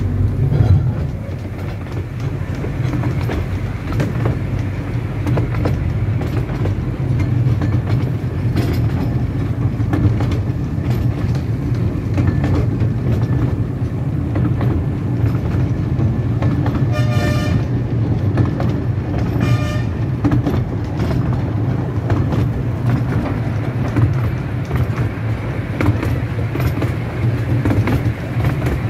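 15-inch gauge miniature railway train running, heard from aboard an open wooden carriage: a steady low rumble of the wheels on the track. A little past halfway the locomotive gives two short toots about two seconds apart.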